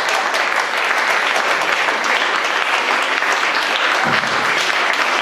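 Applause: many hands clapping at once, a dense, steady patter.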